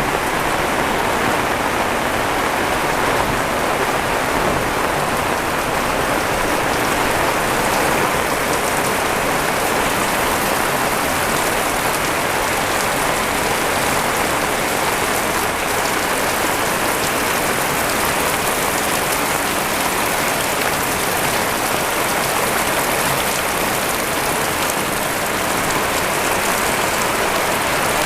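Heavy rain falling steadily, a dense continuous hiss of drops on surfaces.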